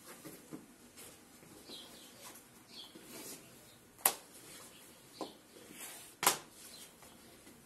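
Notebooks set down one by one on a tiled floor: a few light taps, the two sharpest about four and six seconds in. Small birds chirp faintly in the background.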